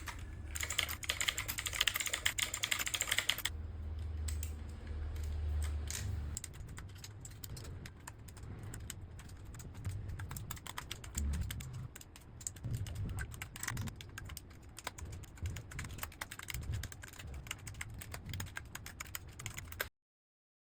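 Fast typing on a mechanical keyboard with clicky blue switches: a rapid, uneven stream of key clicks, louder for the first few seconds. It cuts off suddenly near the end.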